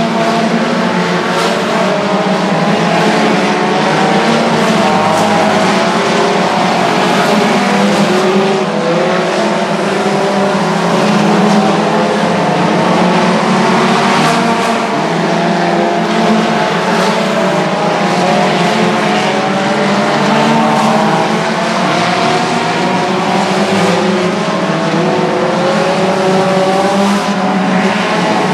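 Several race car engines running together at speed, their pitches rising and falling as the cars lap an oval track.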